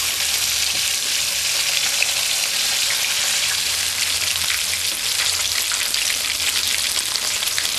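Two whole snapper frying in shallow, very hot oil in a pot: a steady sizzling hiss dotted with constant small crackles and pops.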